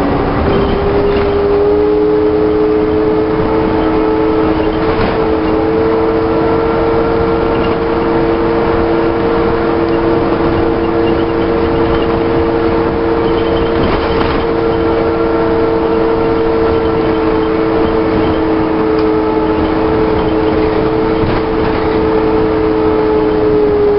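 Alexander-bodied Volvo Olympian double-decker bus cruising at steady speed, heard on board: a steady two-note drivetrain whine over engine and road noise. The pitch rises slightly at the start and eases down near the end, with occasional faint rattles.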